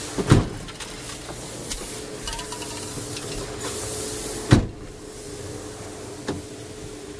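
Two loud thumps about four seconds apart, with a smaller knock near the end, over a steady hiss.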